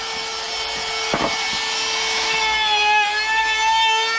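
DeWalt compact router running at full speed with a steady whine while its bit rounds over the edge of a plywood board. Wood-cutting noise runs under the whine, and the pitch shifts slightly as the bit bites about halfway through.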